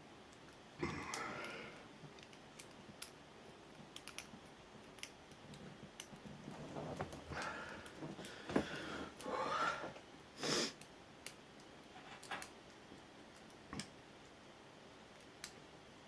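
Lock pick and tension tool working in the cylinder of an ABUS 83AL/45 padlock: scattered light clicks, with a few longer scratchy scrapes about a second in and again in the middle.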